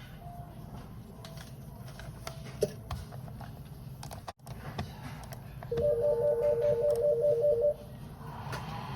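Desk telephone ringing: one warbling two-tone ring, about two seconds long, starting about six seconds in, signalling an incoming call. A few faint clicks and knocks come before it.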